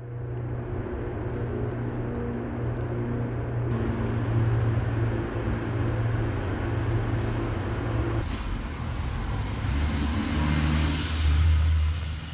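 A small truck's engine approaching on a snowy road, its sound echoing long off the tunnel and concrete walls. The engine note changes to a lower, stronger hum about eight seconds in and is loudest near the end as the truck draws close.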